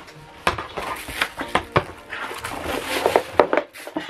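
Plastic wrapping crinkling and a cardboard box being handled while a laptop cooling pad is lifted out of its packaging: irregular rustles and sharp clicks.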